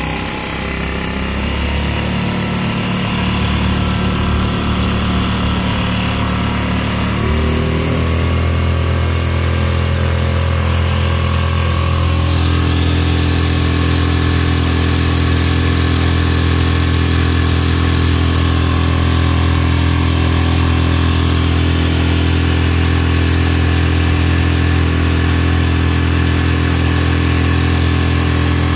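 Mercury 3.5 hp single-cylinder four-stroke outboard running steadily at speed, pushing the kayak at about 7 mph, with water rushing past the hull. The engine note steps up slightly about seven seconds in, then holds steady.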